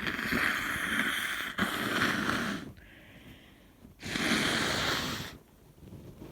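A person with a cold and a stuffy nose blowing her nose, two long noisy blows: the first lasts over two seconds with a brief break in the middle, and the second starts about four seconds in.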